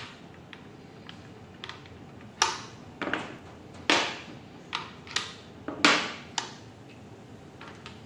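Steel crimping-die segments clacking as they are fitted one by one into the die head of a crimping machine: about ten short, sharp clacks at uneven intervals.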